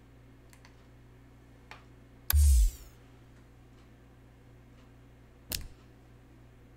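A steady low hum, with a few faint clicks and one loud, brief thump with a hiss about two seconds in. A sharper click comes about five and a half seconds in.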